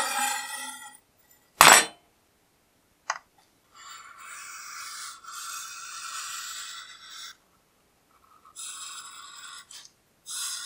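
A steel blade slides over a wooden tabletop and is set down with a sharp clack about a second and a half in, followed by a short click. Then a felt-tip permanent marker scratches and squeaks along the bare steel in several strokes.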